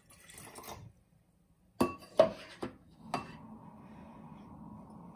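Cabbage juice pouring from a plastic measuring cup into a glass jar for under a second, then four sharp knocks as the cup scoops from a ceramic bowl. A faint steady hum sets in about three seconds in.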